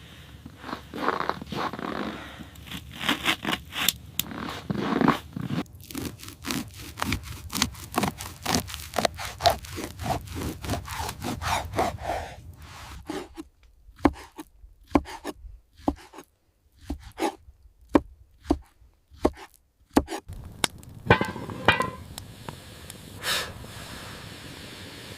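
Scraping and knocking: a dense run of scrapes and sharp taps, then, about halfway through, a few separate sharp knocks with short silent gaps between them.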